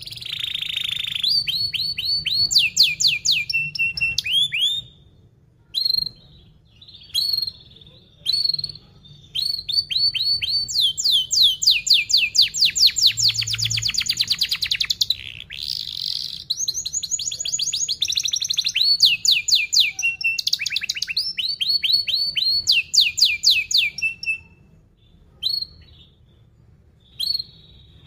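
Domestic canary singing fast, dense rolling trills of rapidly repeated falling notes. The trills come in phrases split by short pauses early and late, with a long unbroken run of trilling through the middle.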